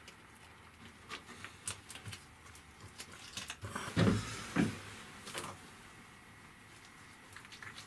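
Handling noises of resin work with a chip brush and a plastic cup: scattered light clicks and taps, with two louder knocks a little past halfway.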